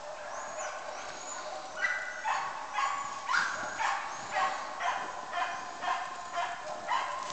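Samoyed sled dog barking in a steady run of short, high yelping barks, about two a second, beginning about two seconds in, with fainter yips before.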